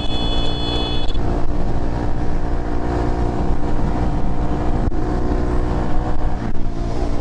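Honda Grom's small single-cylinder engine running steadily at speed in top gear, with wind rumble on the microphone. A high beeping tone sounds for about the first second.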